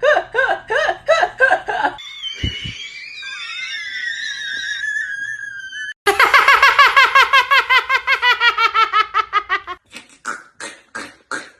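A person laughing uncontrollably. It starts with quick pitched bursts, turns into a long, high, squeaky wheezing squeal for about four seconds, then a fast run of high "ha-ha-ha" that slides slowly down in pitch, and ends in breathy gasps.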